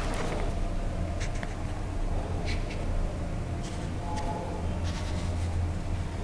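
Marker pen drawing outline strokes on a painted paper, a handful of short strokes heard over a steady low hum.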